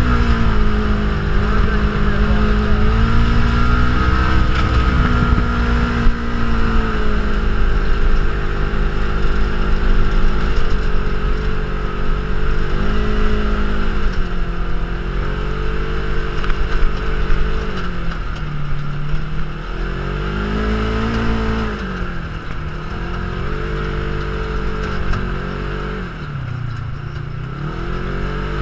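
Side-by-side UTV engine heard from inside the cab, driving on sand, its pitch rising and falling repeatedly as the throttle is eased off and opened again, with the deepest dips in the second half. A steady rush of wind and driving noise runs over it.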